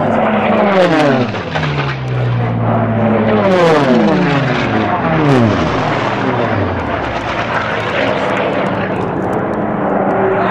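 Several piston-engined unlimited racing aircraft passing low and fast, one after another, each engine's drone falling in pitch as it goes by.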